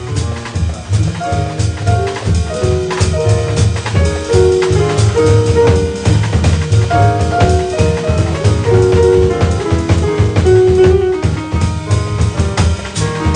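Live jazz band playing: drum kit and double bass keep a steady groove under a melody of held notes, with piano.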